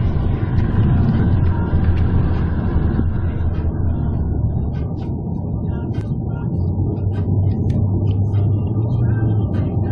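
Road and engine noise inside a moving car's cabin: a steady low rumble, with faint light clicks from about four seconds in.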